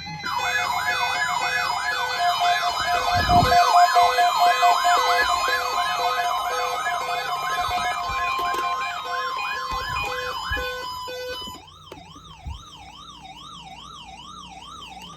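Several NOAA weather radios sound their alert alarms at once, set off by the National Weather Service's weekly test of the 1050 Hz warning alarm tone. A steady tone sits under a dense mix of fast siren-like sweeps and pulsed beeps. About eleven seconds in, the steady tone and most of the alarms stop, leaving one slower warbling alarm.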